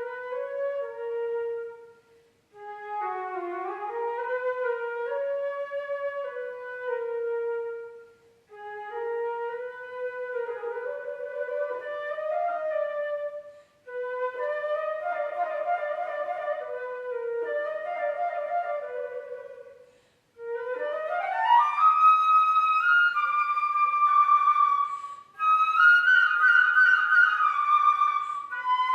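Unaccompanied concert flute playing phrases in its low register, with some notes bent in pitch, separated by short pauses for breath. About two-thirds through, a quick upward run leads into louder, higher playing.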